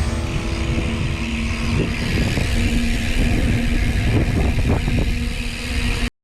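A motor vehicle engine running loudly, a low rumble with a steady hum, which cuts off suddenly near the end.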